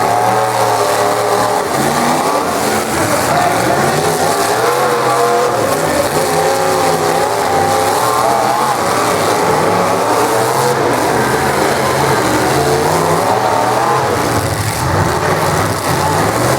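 Engines of several full-size demolition derby cars revving hard, their pitch rising and falling as the cars accelerate and back up in the arena.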